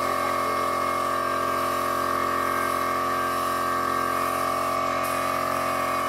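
Vikhr air compressor running with a steady whining drone, under the hiss of an air spray gun spraying wood impregnant. The spray hiss breaks off briefly about five seconds in, then resumes.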